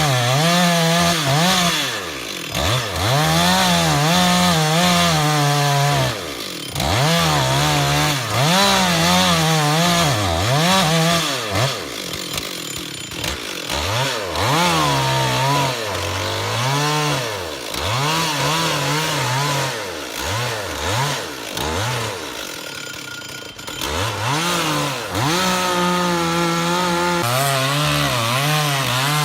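Gasoline chainsaw engine revving up and down over and over, held at full throttle for stretches of a few seconds while cutting into wood, then dropping back between cuts.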